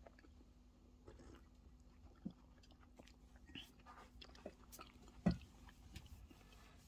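Faint sounds of a person eating and drinking tea: scattered small clicks and chewing noises, with one sharper knock about five seconds in.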